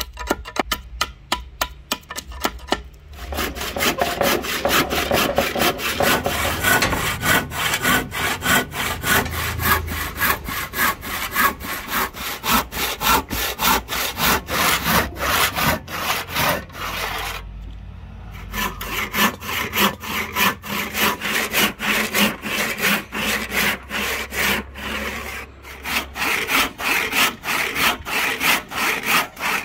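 A long-bladed knife chopping quickly into palm wood, about four strikes a second. Then a hand saw cutting through palm wood in fast, steady back-and-forth strokes, with a short break a little past the middle.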